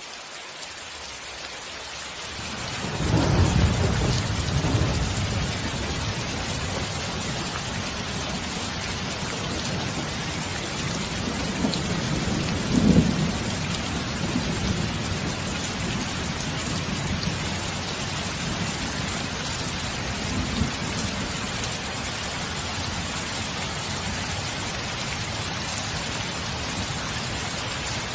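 Thunderstorm: steady rain with thunder rolling in about three seconds after the sound fades in. A sharper clap of thunder comes near the middle and a fainter rumble later.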